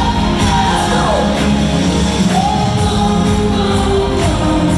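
Live pop performance: female lead vocals sliding between held notes over a full band, with a gospel-style choir singing behind.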